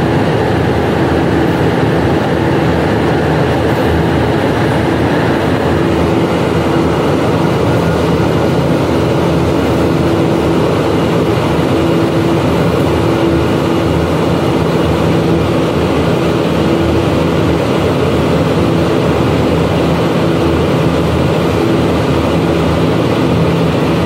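Humidification plant's air-handling machinery running around a rotary drum air filter. It makes a loud, steady rush of air with a constant machine hum.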